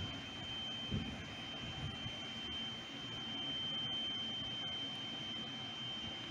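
A steady high-pitched tone over the low rumble of a train approaching in the distance, in open railway-station air.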